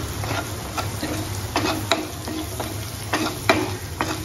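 Spatula stirring diced raw potato through onions and spices frying in oil in a nonstick kadai. Irregular scraping and tapping strokes against the pan sound over a steady sizzle.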